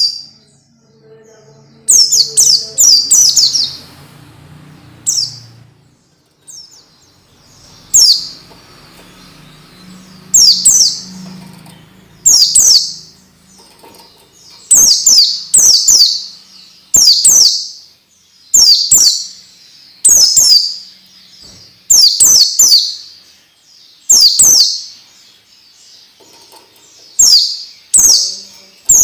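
A white-eye (pleci) singing bursts of rapid, high, falling chirp notes, one phrase every second or two, with a pause of a few seconds early on. The recording is a master call played to get young birds singing.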